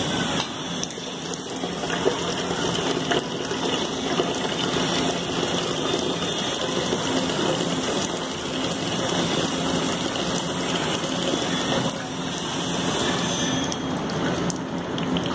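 Water vending machine dispensing: its pump hums steadily while a stream of water pours from the spout into a plastic jug, with a sharp click about two seconds in. The pouring hiss thins out near the end as the flow stops.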